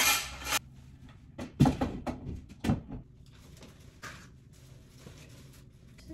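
An extendable shower curtain rod being twisted and handled: a short scraping slide at the start, then several sharp knocks and clacks a couple of seconds in. Faint rustling of a plastic shower curtain follows.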